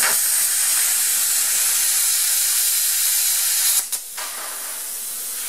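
Plasma cutter cutting 1/8-inch steel plate: a loud steady hiss of the arc and air for nearly four seconds. It cuts off sharply when the arc stops, leaving a quieter steady hiss of air.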